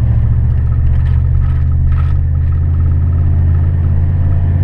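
Tow vehicle's engine and road noise, a loud, steady low rumble, heard from inside the cab while driving.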